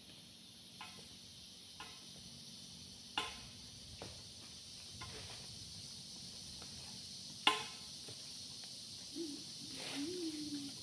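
Steady high-pitched insect drone of tropical forest, broken by scattered sharp knocks and clicks, the loudest about three seconds in and again about seven and a half seconds in. Near the end comes a short, low wavering tone.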